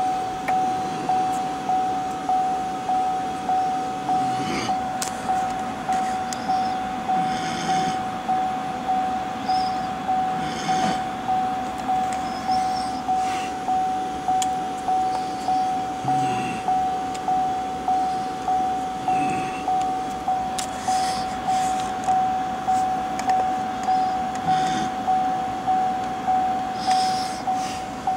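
Chevrolet Volt's dashboard warning chime: a single-pitched ding repeating evenly about twice a second, sounding with the driver's door standing open. Faint clicks and rubbing from a hand on the door frame sound now and then.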